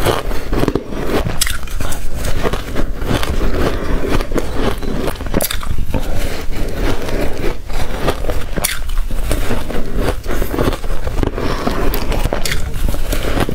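Close-miked crunching and chewing of big mouthfuls of soft shaved ice, a continuous dense crackle of many small crunches. A plastic spoon scrapes and scoops through the ice in the pot between bites.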